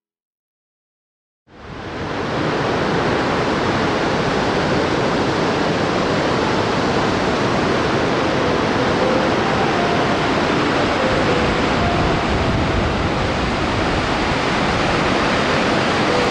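Mistaya River rushing through its narrow canyon: a loud, steady, dense rush of white water that cuts in suddenly about a second and a half in, after silence.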